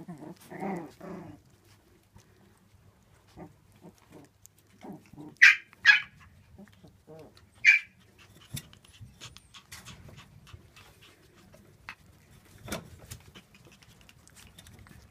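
Shiba Inu puppies playing: a low grumble about a second in, then three loud, sharp, high yaps around the middle, with scattered small knocks and scrabbles as they tumble about.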